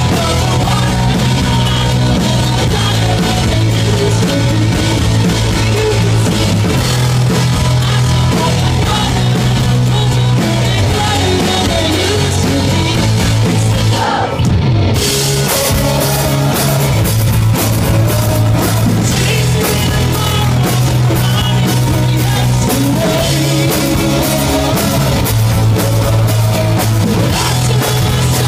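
Live rock band playing loud: drum kit, guitars and a heavy, steady bass line. The top end briefly drops out about halfway through.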